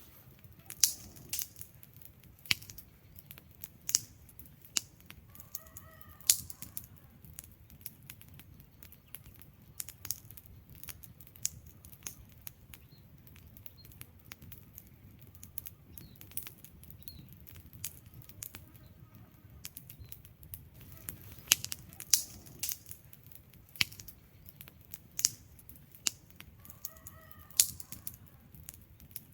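Wood fire crackling: irregular sharp pops and snaps of burning logs, some loud, over a low steady rumble of the flames.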